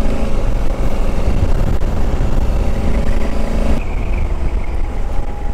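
Motorcycle engine running at road speed, heard from the rider's seat with heavy wind rush on the microphone; the engine note changes about four seconds in.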